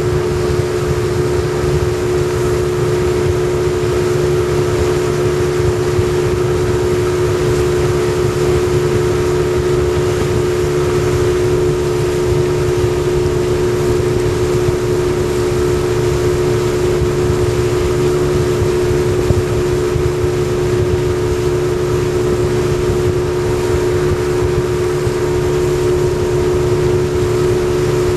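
Yamaha 40 hp two-stroke outboard motor running steadily at constant throttle while the boat cruises: a loud, even drone holding one pitch.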